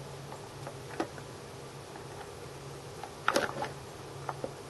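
Plastic wheel being fitted onto the side of an electric pressure washer: a light knock about a second in, then a short cluster of clicks and knocks a little over three seconds in.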